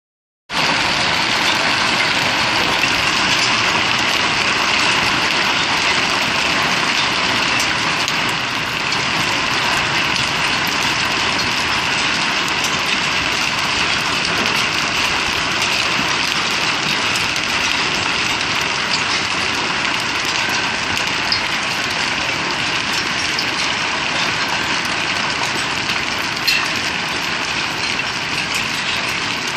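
A hailstorm: hailstones falling hard and clattering on the ground, paving and railings in a dense, steady din, with many small sharp ticks of single stones standing out.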